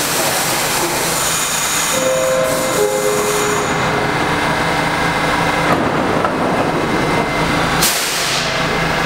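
R68 subway car standing at the platform with its doors open, its equipment giving off a steady loud hum. About two seconds in come a few short tones, each a little lower than the last.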